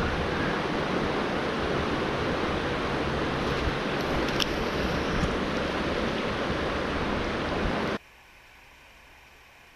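River water flowing and washing past, a steady rushing noise that drops suddenly about eight seconds in to a much fainter steady hiss.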